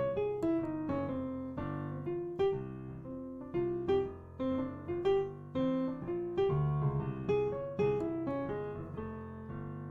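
Piano playing a jazz ii–V–I in F (Gm7, C7, Fmaj7): left-hand chords under a right-hand single-note line that arpeggiates a minor triad off the flat 2 of the C7, a C-sharp minor upper-structure arpeggio. The line moves in separate notes a few per second and ends on a held chord that fades.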